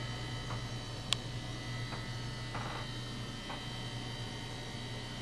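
Steady low hum of the boat's air conditioning running in the cabin, with a single sharp click about a second in.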